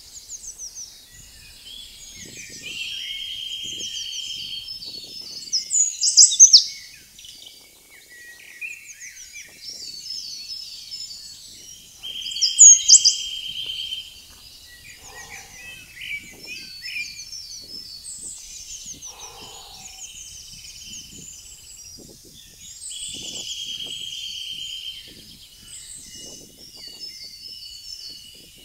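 Several songbirds singing together. One bird repeats a long, even trill every ten seconds or so, and louder bright song phrases ring out about six and thirteen seconds in.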